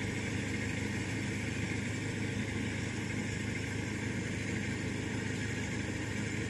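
Diesel engine of rice-harvest machinery running steadily, a low, even drone with no change in pitch.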